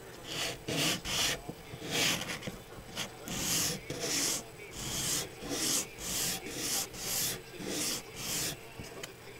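Plastic model-kit wall pieces being sanded by hand on a flat sheet of sandpaper: a run of rasping back-and-forth strokes, about two a second, that stops near the end.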